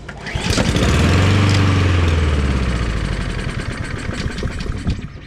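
Honda Harmony II lawnmower's overhead-cam engine catching on a pull after a spray of carb cleaner and running hard for a moment, then slowing and weakening over the next few seconds. This is the pattern of an engine fed only by the sprayed cleaner, which the owner puts down to a carburetor needing a good cleaning, perhaps a clogged jet.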